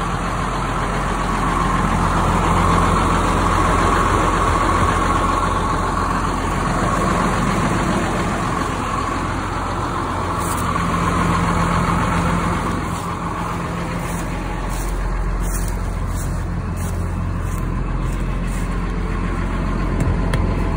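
Box truck engine idling steadily, already warmed up.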